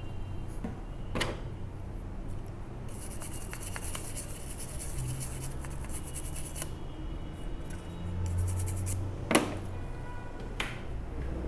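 A brush scrubbing a TV circuit board, a run of quick scratchy strokes for a few seconds in the middle, with a few sharp clicks of tools or the board being handled, the loudest near the end.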